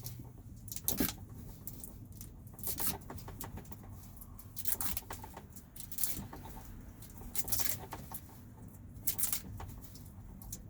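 Irregular short rustling and scraping handling sounds, one every second or so, from hands working on car wiring, over a faint steady low hum.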